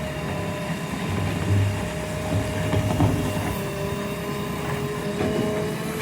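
JCB 3DX backhoe loader's diesel engine running steadily, with a steady whine above the engine rumble and a few louder knocks in the middle.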